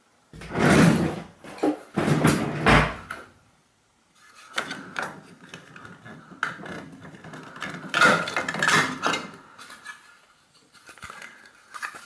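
Handling noise: two loud rustling, scraping bursts in the first three seconds, then a run of light knocks, clicks and rustles. There is no steady motor hum.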